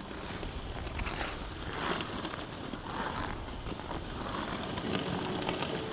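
Figure skate blades gliding and scraping on ice, with a series of swishing strokes about once a second.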